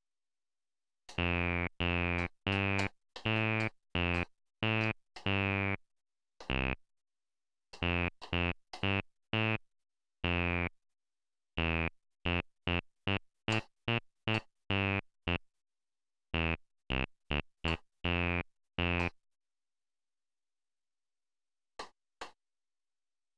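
Venom VB-303, a software TB-303 bass-line synthesizer, sounding short, buzzy single bass notes one at a time at an uneven pace, the pitch changing from note to note, as pitches are keyed into a pattern in pitch mode. The notes stop about three-quarters of the way through, and two faint short notes sound near the end.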